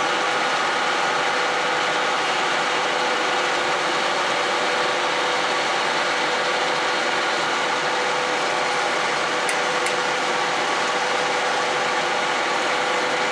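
Metal lathe running steadily while turning an Ertalon (nylon) plastic bushing, its drive giving an even mechanical hum with several fixed tones.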